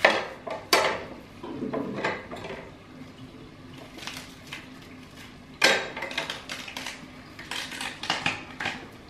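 Small kitchen knife cutting into a banana stem, with sharp knocks at the start, just under a second in and again about six seconds in, and rasping scrapes of the blade through the fibrous outer layers in between.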